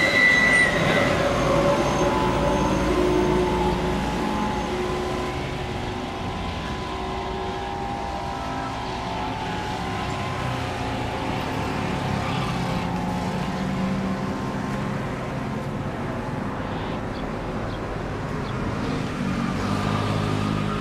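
Boeing 777 jet engines running on the ground, a steady whine of several tones with a faint rumble. A higher whistle stops about a second in.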